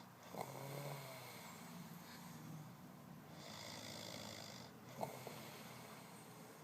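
A sleeping man snoring. A low snore with a sharp start comes about half a second in, a hissing out-breath follows around the middle, and another short catch in the throat comes about five seconds in.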